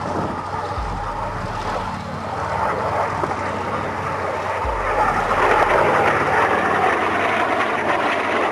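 Jet noise from a Soko G-2 Galeb's Rolls-Royce Viper turbojet as it flies past, growing louder from about five seconds in. Low wind thumps on the microphone.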